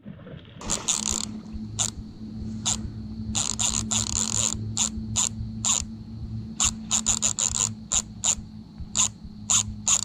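Spinning reel's drag clicking in irregular bursts, sometimes close together, as a hooked carp pulls line. A steady low hum runs underneath.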